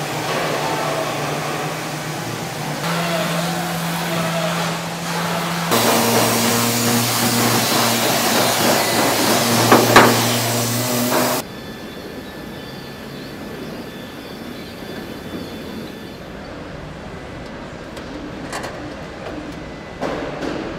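Powered sander running against a bare metal car body panel. Its steady hum and hiss changes pitch and loudness in steps, grows loudest in the middle with a sharp knock about ten seconds in, then drops to a quieter machine hum with a few faint clicks.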